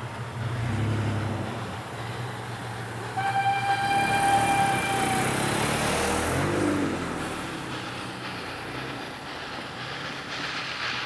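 Ol12-7 steam locomotive sounding its whistle: one steady blast of about two seconds, starting about three seconds in, over a low steady rumble.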